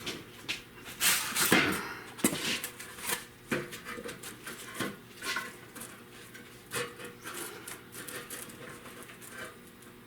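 Irregular clicks and scraping from hand work on the car's sheet metal, loudest in a cluster in the first two seconds, then single strokes every half second or so that thin out in the second half.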